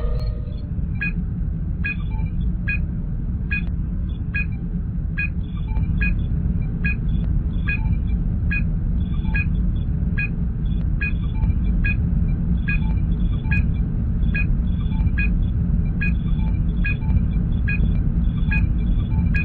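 Sci-fi starship bridge ambience: a steady low engine hum under a short electronic scanner beep that repeats evenly, a little faster than once a second.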